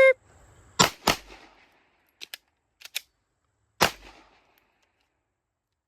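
The shot timer's electronic beep cuts off at the start. Two gunshots about a quarter second apart follow, then a few light clicks as the gun is reloaded, then a single gunshot a little under four seconds in: a two-shots, reload, one-shot drill.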